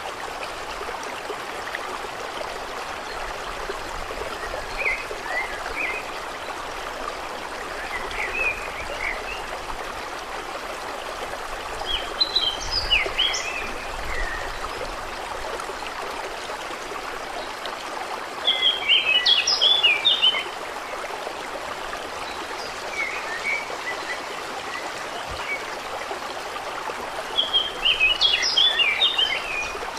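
Steady running water at a lake, with a songbird singing short twittering phrases every several seconds over it. The longest and loudest phrases come about twelve seconds in, near the middle and near the end.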